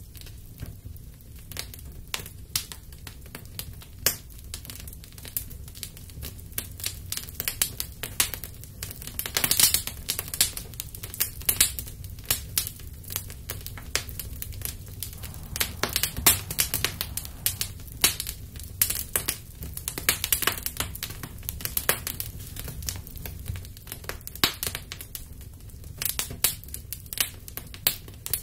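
Small fire of offerings burning in an earthen bowl, crackling and popping with irregular sharp snaps that come thickest in the middle, over a steady low rumble.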